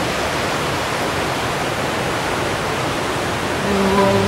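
Steady, even rushing noise, like fast water or wind on the microphone. Near the end a few held notes of background music come in over it.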